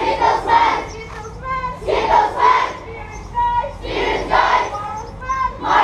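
A large group of children shouting a chant together in loud bursts about every two seconds, with a single voice calling out between the bursts: a call-and-response camp chant.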